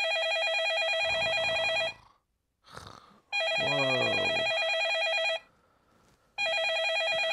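A phone's trilling electronic ringtone rings three times, each ring about two seconds long with short gaps between. Between the rings a person's low voice groans, falling in pitch.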